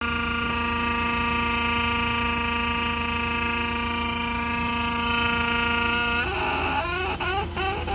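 A steady, pitched mechanical whine with many overtones stops about six seconds in. A run of short, bending cries that rise and fall in pitch follows it.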